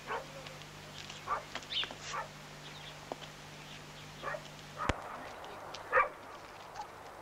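A dog barking in short scattered bursts, loudest about six seconds in, over a low steady hum that stops with a sharp click about five seconds in.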